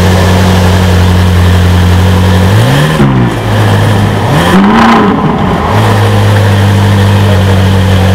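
Ferrari 458 Spider's 4.5-litre V8 idling, then revved twice in short blips, its pitch rising and falling each time, a few seconds in and again about halfway through, before settling back to a steady idle.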